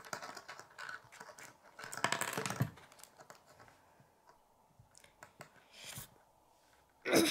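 Plastic K'nex rods and connectors clicking and rattling as they are handled and snapped together: a string of small irregular clicks, with a longer scraping rustle about two seconds in.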